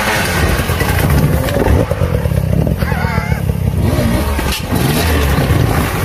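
Off-road dirt bike engines running and revving, with people's voices over them.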